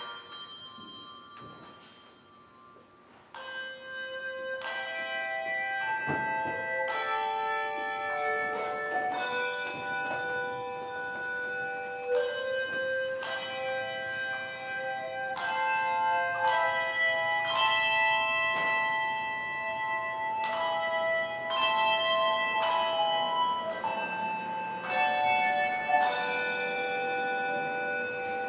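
Handbell choir ringing a piece: struck bell notes that ring on and overlap into chords. The notes begin after a short lull about three seconds in.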